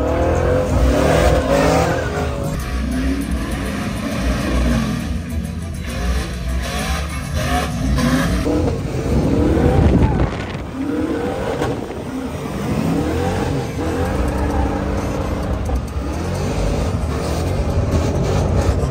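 Pickup truck engine revving up and down repeatedly while off-roading, with tyre noise over loose ground.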